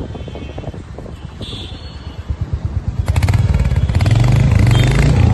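Motorcycle engine running at low speed with uneven low pulses, then louder and steadier from about three seconds in as the bike speeds up.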